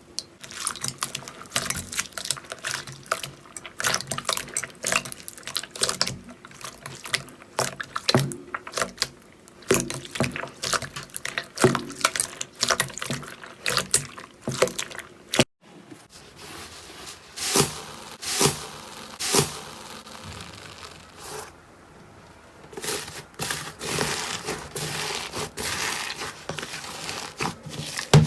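Slime being squeezed and pressed by hand: a dense run of wet, sticky pops and crackles. A sharp click and a moment's gap come about halfway through, then the squishing carries on.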